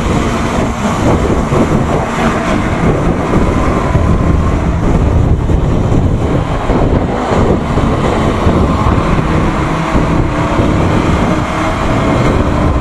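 KTM Duke 200's single-cylinder engine running steadily at a cruise of about 40–47 km/h, mixed with wind rushing over the bike-mounted microphone.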